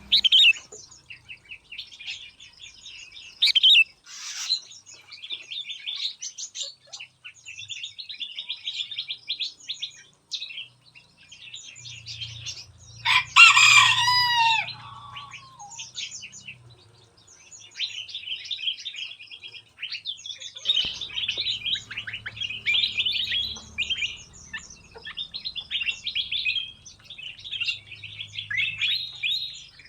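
Many small aviary birds chirping and singing over one another, with one louder, longer call about halfway through.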